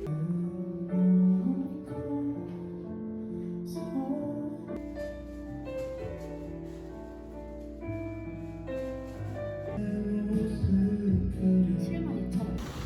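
Background music: a gentle song with sung melody over guitar and piano.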